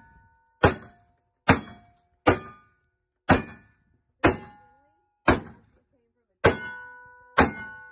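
Eight black-powder gunshots, one about every second, each followed by the brief ringing of struck steel targets.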